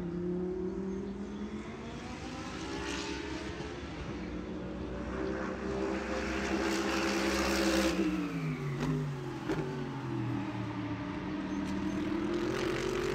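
A vehicle engine revving up and down. Its pitch climbs over several seconds, drops steeply about eight seconds in, then climbs again.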